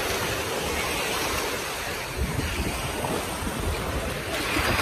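Small sea waves breaking and washing up the beach in a steady hiss of surf, swelling as a wave breaks near the end. Wind rumbles on the microphone underneath.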